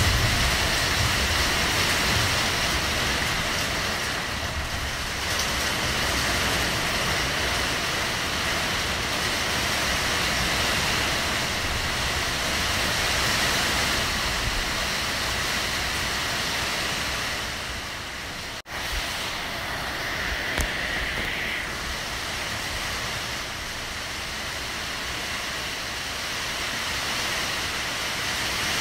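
Heavy rain falling steadily, an even rushing hiss. It drops out for a split second about two-thirds through, with a small click a couple of seconds later.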